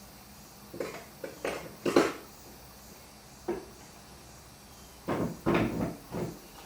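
Irregular knocks and clunks, a few at a time, like handled wood or metal objects being set down and moved, with a cluster near the end.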